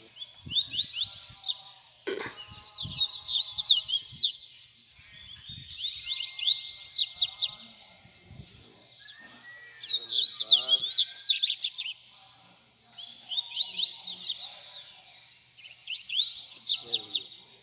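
Caged seedeaters singing: short phrases of rapid, high, sweeping notes, repeated about every three seconds with brief pauses between them.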